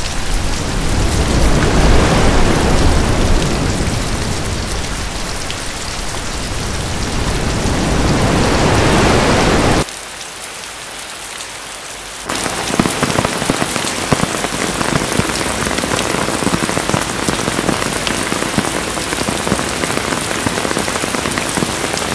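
Rain sound effect: dense, steady rain that swells and eases. About ten seconds in it drops suddenly to a quieter, thinner rain, and about two seconds later it cuts back up to rain with many distinct little drop ticks.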